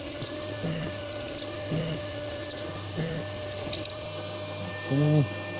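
Lathe cutting 17-4PH stainless steel: a steady high hiss of the tool in the cut, with a regular knock about once every second, over the lathe motor's hum. The cutting stops about four seconds in, leaving the motor running, and a short low hum-like tone follows near the end.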